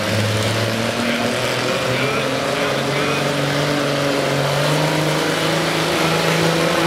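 Oliver pulling tractor's engine running hard under load as it drags a weight-transfer sled. The pitch sags slightly in the first second, then climbs steadily.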